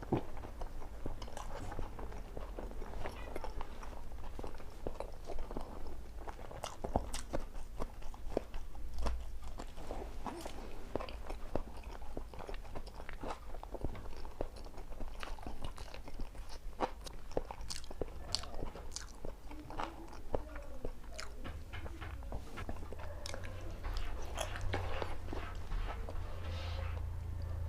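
A person eating close to the microphone: chewing and biting boiled eggs, spicy chillies and salad, with frequent irregular crunches and wet mouth clicks.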